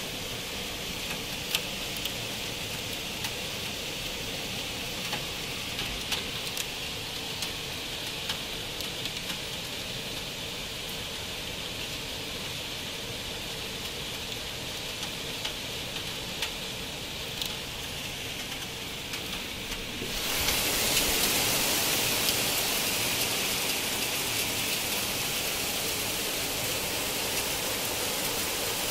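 Rain and hail coming down steadily, with scattered sharp ticks of hailstones striking. About twenty seconds in, the downpour suddenly gets louder and brighter and stays that way.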